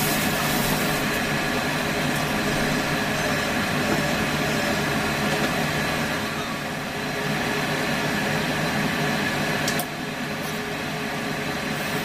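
Kitchen ventilation fan running with a steady hum and hiss; the sound drops a little about ten seconds in.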